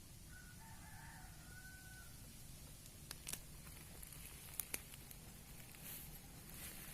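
A rooster crowing faintly once, followed by a few sharp clicks.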